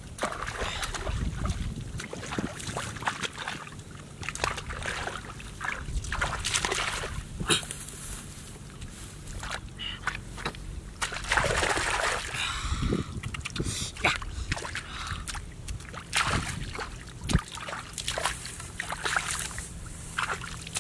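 Hands splashing and sloshing in shallow muddy water, groping along the bottom of a ditch in irregular splashes, with a longer, louder stretch of splashing about eleven to thirteen seconds in.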